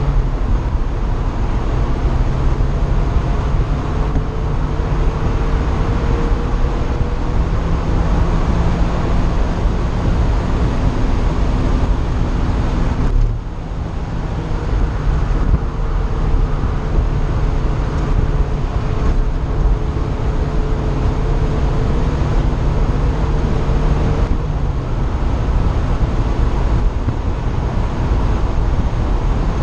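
Car engine heard from inside an open-topped car at full throttle on a race track, its pitch slowly climbing, with heavy low wind rush. About 13 seconds in the engine note drops suddenly as the driver lifts off, then builds again; there is another change in the engine note about 24 seconds in.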